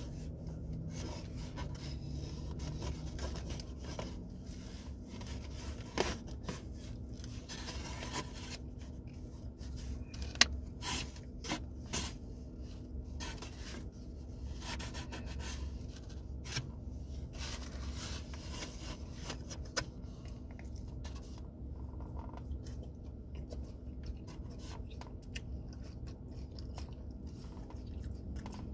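Chewing and crunching of crispy tacos, with rustles and a few sharp clicks from handling the food, the loudest about six and ten seconds in, over a steady low hum.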